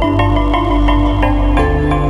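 Instrumental music with held chords under a run of struck, bell-like notes, about three a second; the chord and bass change near the end.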